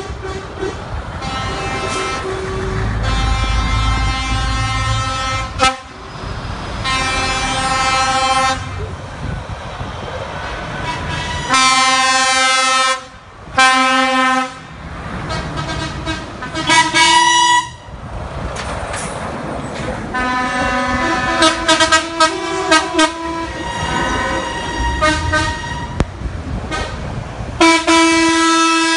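A convoy of trucks passing one after another, blowing their air horns again and again: long blasts and short toots, several of them chords of a few tones like train horns, the loudest blasts coming in the middle and near the end. Under the horns, the trucks' diesel engines rumble as they go by.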